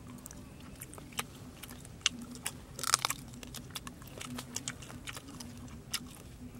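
Close-up chewing and crunching of cooked bat meat and small bones, in scattered sharp crunches with a denser cluster about three seconds in.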